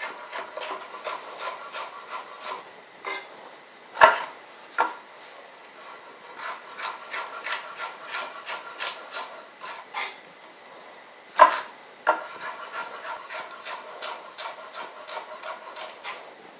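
Chef's knife slicing habanero peppers on a wooden cutting board: a steady run of light blade taps on the wood. A few louder knocks come about four, ten and eleven seconds in.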